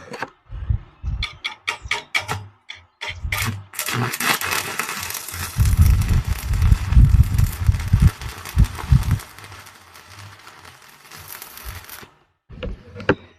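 Stick (arc) welding with a 1/8-inch 6013 electrode on solid steel bar. A series of short taps and scratches come as the rod is struck to start the arc. The arc then crackles and sizzles steadily for about eight seconds and cuts off sharply near the end, followed by a couple of taps.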